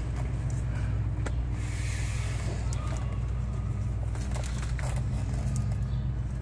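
Steady low motor hum, with a few faint clicks and rustles of hands working rope and a roll of electrical tape.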